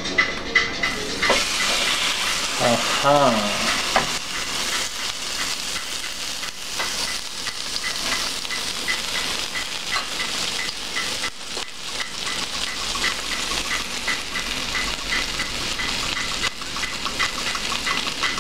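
Hot oil sizzling and crackling in a frying pan as an egg-coated stuffed red pepper fries, starting about a second in and then holding steady.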